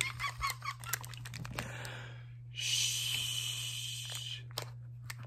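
Clinks and rustling of a hand rummaging in a glass candy jar, then a person going "shhh" for about two seconds.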